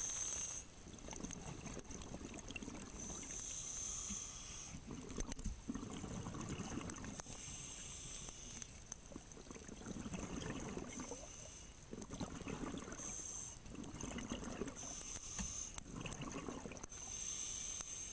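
A scuba diver's regulator breathing underwater: hissing inhalations alternate several times with bubbling, gurgling bursts of exhaled air.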